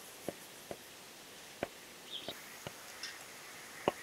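Quiet outdoor background with about six sharp, irregularly spaced clicks and two brief high chirps.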